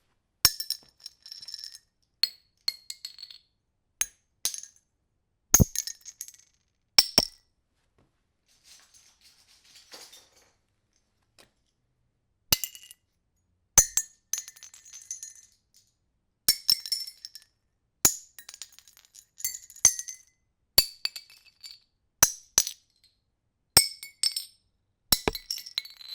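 Metal bottle caps dropped onto a concrete floor: sharp clinks, each followed by a short high metallic rattle as the caps bounce and settle. The drops come irregularly about once a second, with a quieter stretch of faint scattered ticks in the middle.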